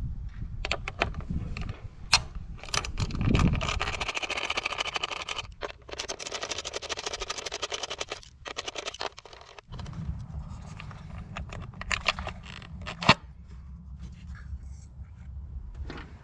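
Metal hand tools and parts clinking and scraping, with many sharp clicks and a fast, hissy rattle of clicks from about four to nine seconds in.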